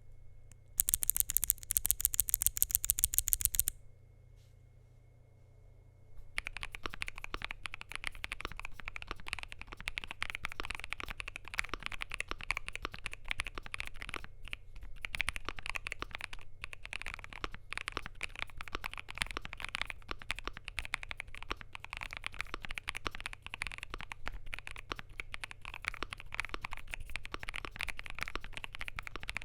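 Mechanical keyboard typing: a Zuoya LMK81 with lubed, filmed Vertex V1 switches, a polycarbonate plate and MDA keycaps, giving a steady stream of key strokes from about six seconds in. Before that comes a loud, rapid, evenly spaced run of sharp, high clicks lasting about three seconds, then a short pause.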